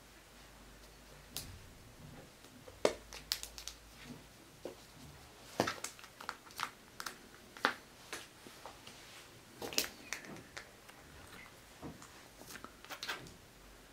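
A cat gnawing on a stiff plastic strip: irregular sharp clicks and crunches of teeth biting the plastic, coming thicker after the first few seconds.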